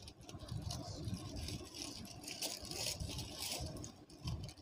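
Honeycomb kraft packing paper crinkling and rustling irregularly as hands pull it out of a cardboard shipping box.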